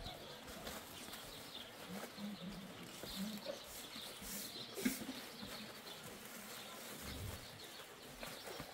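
Faint animal calls and light footsteps scuffing on a dirt path, with one sharp click about five seconds in.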